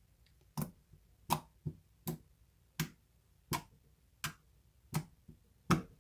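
A series of about ten sharp clicks or pops, roughly one every three quarters of a second and uneven in spacing.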